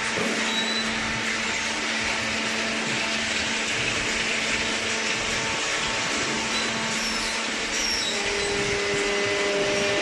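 Waste paper baling machinery running steadily: a constant mechanical drone with a low hum. A slightly higher tone joins about eight seconds in.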